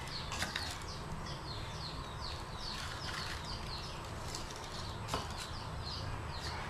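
Birds chirping continuously, a rapid run of short falling chirps, over a low steady hum. Two light clicks stand out, about half a second in and about five seconds in.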